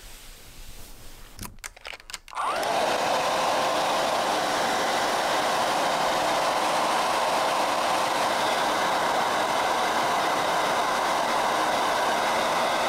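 A hair dryer is switched on about two and a half seconds in, after a few clicks; its motor whines up to speed and then blows steadily, drying a freshly bathed dog's coat.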